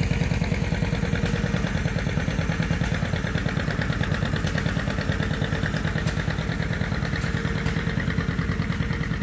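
Vintage tractor engine running steadily with a fast, even beat.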